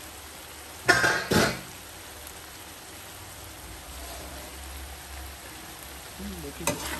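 Minced meat (keema) with onions frying in a wok-shaped pan with a steady sizzle, its water almost cooked off. Two loud metal clanks come about a second in.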